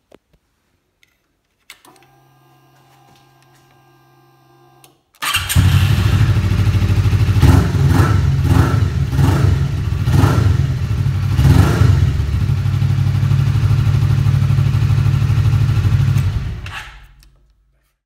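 Suzuki GSX250R parallel-twin engine breathing through an Arrow Pro Race exhaust, run indoors: a click and a few seconds of steady hum, then the engine starts and is revved in several quick blips, settles to a steady idle and is switched off, dying away near the end.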